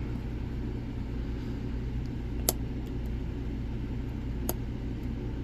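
Two short sharp clicks about two seconds apart from a lock pick working the serrated pins of a Gege pExtra lock cylinder, over a steady low hum.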